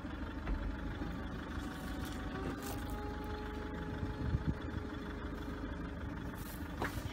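Electric folding-hardtop roof mechanism of a coupé-convertible whining steadily as the roof folds back and stows into the boot, over a low rumble. It ends with a click near the end as the boot lid shuts.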